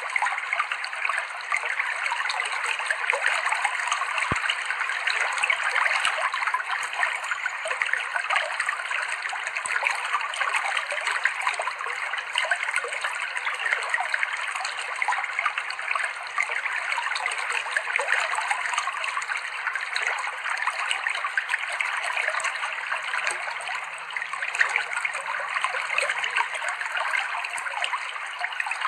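Clear, shallow river water flowing and splashing steadily over rocks.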